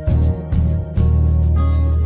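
Background music with a deep bass line and a regular beat.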